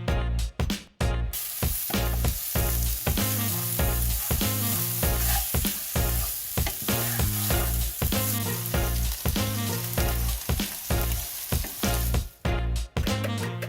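Food sizzling in a hot frying pan, starting about a second in and cutting off shortly before the end, over background music with a steady beat.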